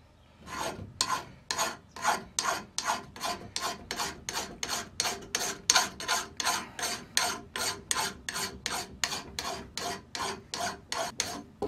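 Hand file stroked back and forth across the steel edge of a splitting maul, an even run of rasping strokes about three to four a second, deburring and sharpening the blade.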